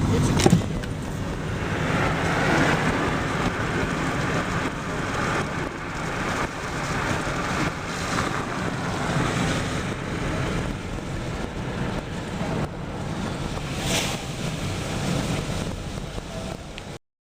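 Steady outdoor rushing noise with a low rumble, broken by a sharp click about half a second in and another near the end; the sound cuts off abruptly.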